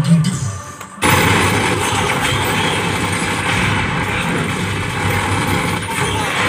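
Action-film soundtrack heard through cinema speakers: a held music tone breaks off about a second in and a loud, steady din of truck engines and gunfire starts.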